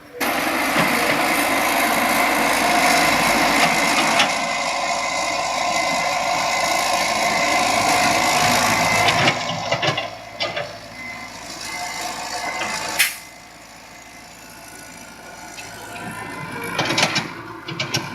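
Excavator engine running: loud for about the first nine seconds, then quieter and uneven, with rattling. A sharp sound about thirteen seconds in, after which it is much quieter.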